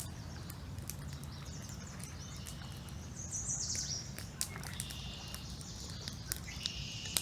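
Songbirds chirping and trilling, several calls overlapping, the busiest stretch a few seconds in and again near the end, over a steady low rush of river water.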